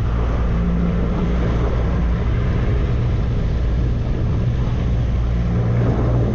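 Fishing boat's engine running with a steady low drone, under an even hiss.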